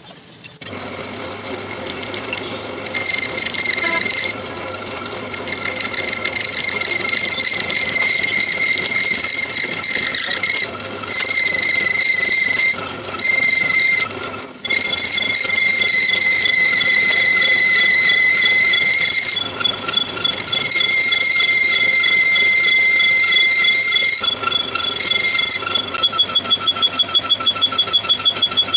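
Lathe cutting tool squealing on metal while machining, a high-pitched whine that cuts out briefly a few times. Near the end it becomes a fast, regular pulsing.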